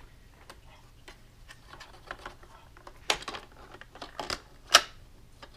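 Plastic clicking and clatter as the revolving plastic ammo drum of a toy R/C blaster turret is handled and lifted off its geared mount. It starts with faint scattered ticks, then a few sharper clicks in the second half, the loudest near the end.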